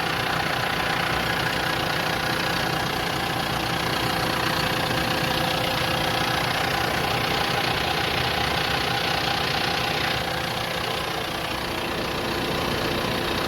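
John Deere excavator's diesel engine running steadily at idle, dropping slightly in level about ten seconds in.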